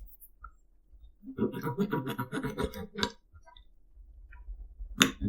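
Mouth sounds of a man eating a bite of steak: chewing with a short voiced murmur in the middle, then a sharp click near the end.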